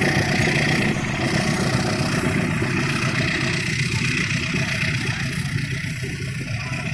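A heavy diesel vehicle engine running steadily close by, with clatter, growing a little quieter in the last few seconds.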